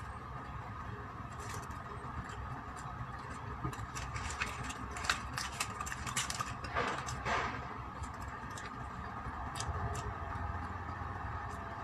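Crinkling plastic wrapper and clicking of a tart cup as an egg tart is unwrapped and handled by hand, loudest in the middle, over a steady background hum. A few crisp clicks near the end come as the tart is bitten.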